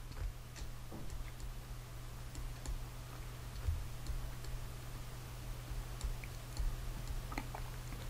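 Faint, irregular light clicks and taps of a stylus on a drawing tablet while handwriting is written, over a steady low hum.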